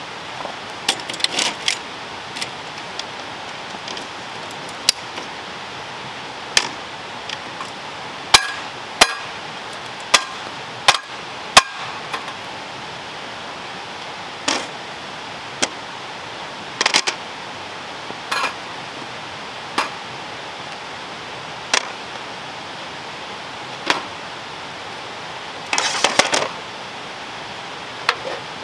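Sharp metallic clicks and clanks, one or two every couple of seconds with short clusters near the start and near the end, as a folding aluminium camp table is opened out, its legs snapped into place, and cookware is set down on it. A steady hiss runs underneath.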